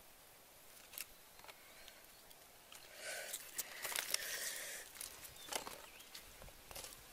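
Mushrooms being handled in a woven bamboo basket: a few faint clicks, then about two seconds of louder rustling and clicking as the basket is lifted and the mushrooms shift inside it, followed by a few scattered footstep clicks on grass and leaf litter.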